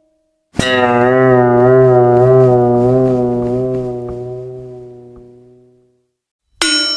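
Cartoon dizzy sound effect. A held low, wobbling brass-like note starts about half a second in and fades away over five seconds. A sharp bell-like ding with a rising pitch comes near the end, as the effect starts over.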